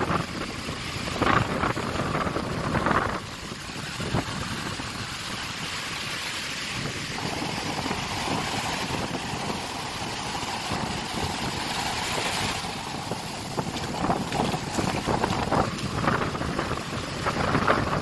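Sea surf breaking and washing up a sandy shore in a steady rush, with strong gusty wind buffeting the microphone in low rumbling surges, most of all near the start and in the last few seconds.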